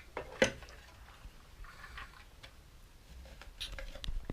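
Small plastic toys being handled and moved on a hard surface: scattered light clicks and taps, with one sharper knock about half a second in.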